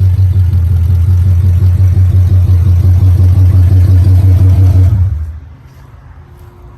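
Oldsmobile 350 Rocket V8 running loud on open long-tube headers with no exhaust fitted, a deep, fast-pulsing rumble. The sound falls away sharply about five seconds in.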